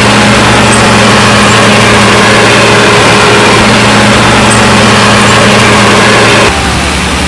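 Heavy construction machine's diesel engine running steadily and loudly. Near the end the sound drops a little and turns to a lower hum.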